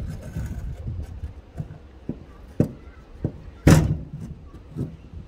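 Irregular knocks and scraping against a fibre-cement soffit board as a screw is felt for and pushed down through a pre-drilled pilot hole from the roof space above. There is one loud knock about two-thirds of the way in.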